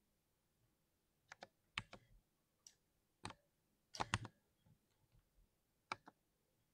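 Mechanical keyboard keys pressed one by one and in small runs: scattered sharp clacks with quiet gaps between them, the loudest run of several keystrokes about four seconds in.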